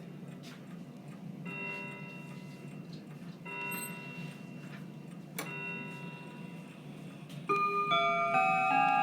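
Seth Thomas Legacy V mantel clock striking the hour on its chime rods: one ringing note about every two seconds, three times. Near the end a faster, louder run of differently pitched chime notes begins.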